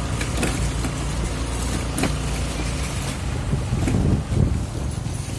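Motor scooter running while being ridden, with wind buffeting the microphone. A couple of sharp clicks, the clearer one about two seconds in.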